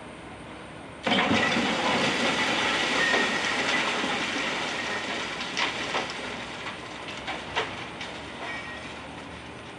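A wrecking ball strikes a partly demolished building about a second in, setting off a sudden crash and rumble of falling concrete and debris. It fades over the next few seconds into scattered clatters of pieces landing.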